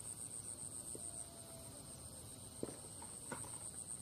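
Insects chirring steadily at a high pitch, with a few faint clicks about one second in, near the middle and about three seconds in.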